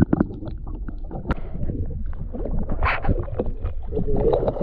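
Water splashing and sloshing against the side of a small aluminium boat, with scattered knocks on the hull, as a gummy shark thrashes at the surface and is hauled aboard; a bigger splash about three seconds in.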